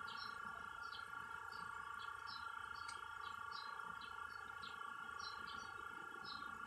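Small birds chirping, short calls repeating several times a second, over a steady hum.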